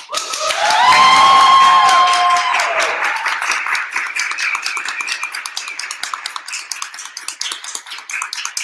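Audience applauding, with a high cheer held for about two seconds near the start; the clapping then goes on steadily.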